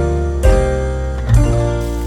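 Background music: acoustic guitar strumming chords, a new chord roughly every second.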